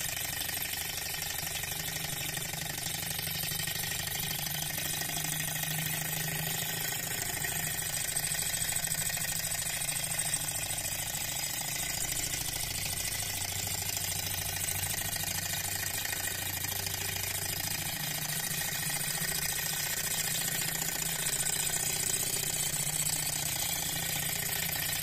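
Small model Stirling hot-air engine running steadily on its own, heated by a spirit lamp, its flywheel and pistons turning a small generator.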